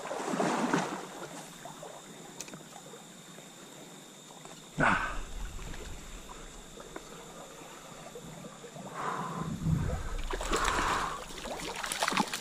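Trout stream water running and trickling, with rustling handling noises and one sharp knock or splash about five seconds in.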